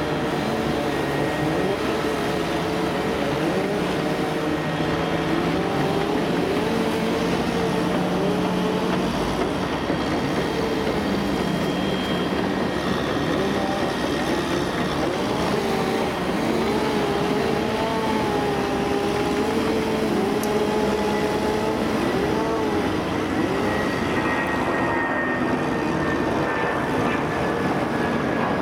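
Airbus A330 airliner's jet engines running at taxi power: a steady hiss and rumble with a thin high whine that dips slightly in pitch near the end.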